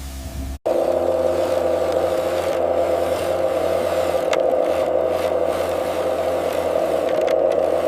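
Mini excavator engine running steadily with a whirring drone, starting abruptly about half a second in after a brief silence.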